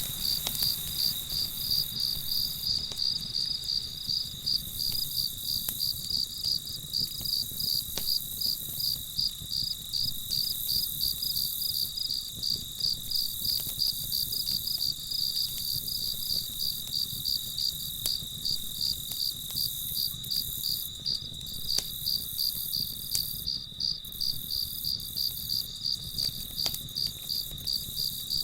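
Crickets chirping in an even rhythm, about three chirps a second, over a continuous high trill. A few faint crackles from a campfire come through now and then.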